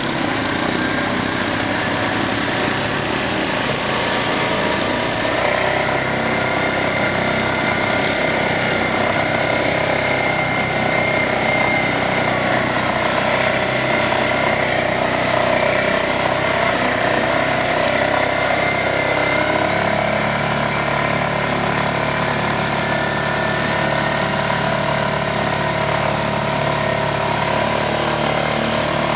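ATV (quad) engine running steadily as the quad wades through a flooded stream, with water splashing and rushing around the wheels.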